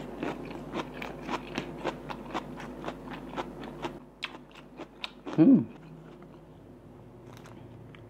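Wet, smacking chewing of a Vietnamese rice paper roll with beef filling, clicking about twice a second and thinning out after about four seconds. A short, loud throaty sound rises and falls in pitch about five and a half seconds in.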